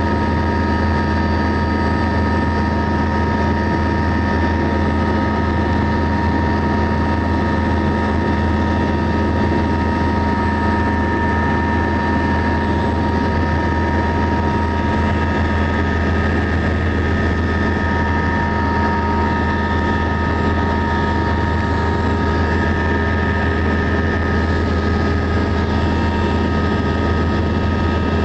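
Eurocopter AS332 Super Puma twin-turbine helicopter in flight, heard inside the cabin: a loud, steady low drone with several constant high whining tones over it.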